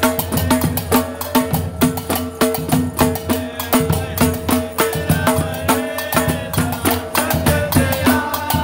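Live band playing Moroccan folk music: a quick, steady beat of hand percussion under held melody notes.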